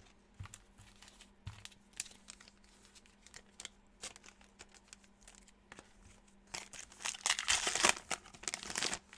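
Plastic trading-card pack wrapper being handled and torn open: light clicks and rustles at first, then louder crinkling and tearing from about six and a half seconds in until near the end.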